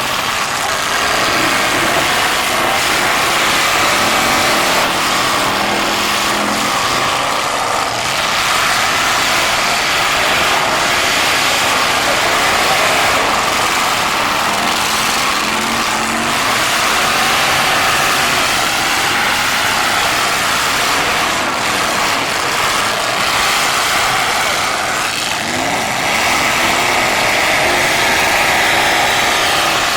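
Several stock cars' engines running and revving hard together in a demolition derby heat, a dense, loud, continuous engine din that rises and falls in pitch.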